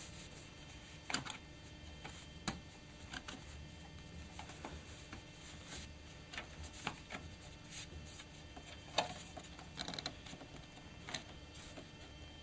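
Irregular light clicks and taps of a laptop's titanium base plate being handled and fitted back onto the bottom case, with a sharper click about a second in, another about two and a half seconds in, and another about nine seconds in.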